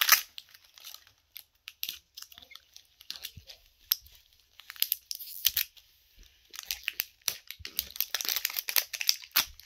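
Plastic wrapping of a LOL Surprise ball crinkling and tearing as it is picked at and pulled open by hand, in irregular crackles that come thicker and faster in the second half.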